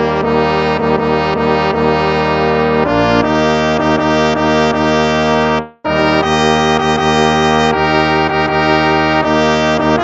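Instrumental hymn played in brass tones like trombone and trumpet: held chords that change every few seconds, with a brief break just after halfway before the next phrase.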